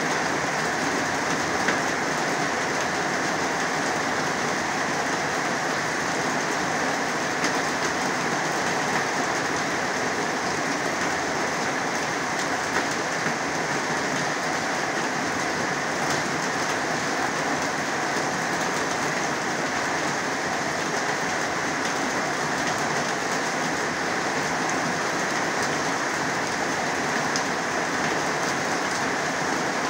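Heavy rain falling steadily, a dense, even hiss with now and then a single louder drop striking nearby.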